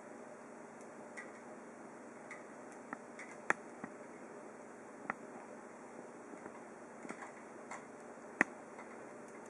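Scattered small clicks and taps of a tiny screwdriver and plastic parts as the key set screw is driven into a toy RC helicopter's flybar head, over a steady faint hiss. The two sharpest clicks come about a third of the way in and near the end.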